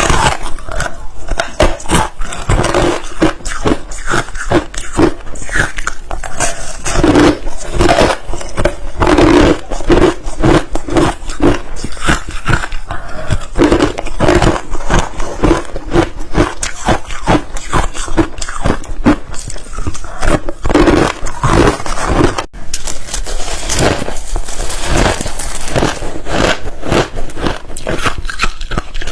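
Ice being bitten and chewed close to the microphone: a dense, loud run of crisp crunches, one after another.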